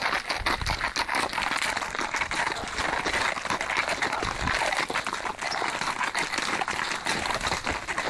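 Horse's hooves clip-clopping at a walk on a mountain trail, irregular sharp clicks over a steady hiss.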